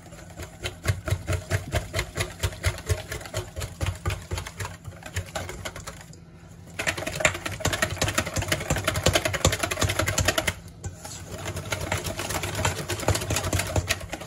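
Wire whisk beating rapidly against a stainless steel bowl, a fast run of metallic ticks as liquid cream is whisked into a thick egg-yolk Caesar dressing. The whisking pauses briefly twice, about six seconds in and about ten and a half seconds in, and the middle spell is the loudest.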